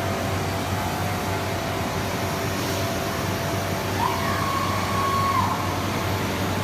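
Steady drone of a CNC nesting centre and its workshop machinery running, with a brief whine about four seconds in that rises, holds for a second or so and falls away.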